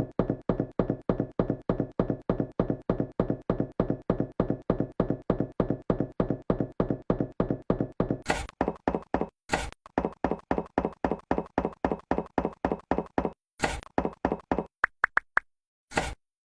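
Rapid, evenly spaced light taps or knocks, about five a second, like small bricks being tapped into place. The taps break off a few times in the second half and end as a few scattered single hits.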